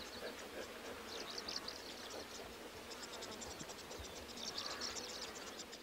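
Faint outdoor ambience of high, rapid chirping calls from small wild creatures, coming in quick runs of short chirps over a steady hiss.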